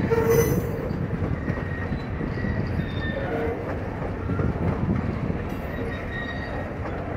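Freight train hopper cars rolling past on the rails: a steady rumble and clatter of steel wheels over the track, with short squeals of the wheels here and there.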